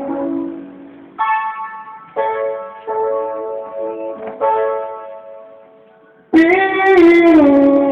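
Electric guitar playing a slow melody of sustained single notes, each starting about a second apart, then a louder held note about six seconds in that bends down in pitch.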